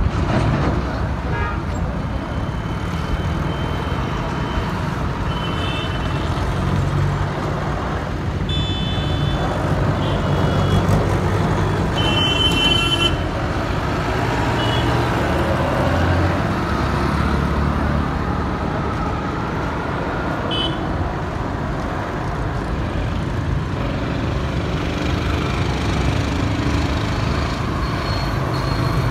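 Busy road traffic passing close by: cars, motorcycles and auto-rickshaws, with a steady rumble of engines and tyres. Short vehicle horn toots sound several times, the loudest a double toot about 12 seconds in.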